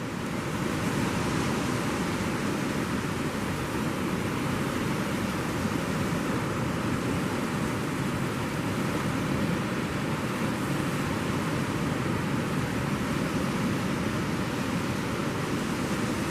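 Steady rushing noise of ocean surf with wind on the microphone. It swells about half a second in and then holds even.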